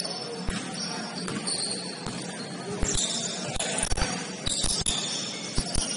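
Basketball game play on a gym floor: the ball thuds irregularly as it bounces, and sneakers give short high squeaks, most of them in the second half.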